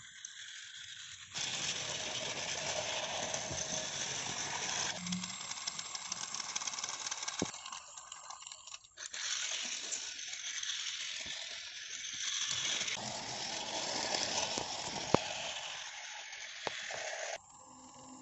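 Battery-powered toy steam train running on plastic track, its motor and wheels making a steady rattling whir that starts about a second and a half in and cuts off near the end. Two sharp clicks stand out, one about halfway and one near the end.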